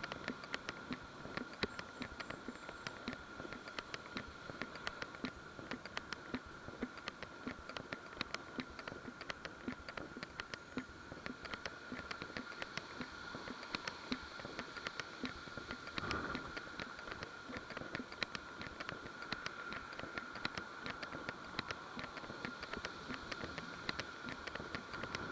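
Walking along a paved path with a camera carried on the body: a stream of light, irregular clicks and ticks from steps and the camera jostling, over a steady faint high whine and light hiss. A brief low bump about two-thirds of the way through.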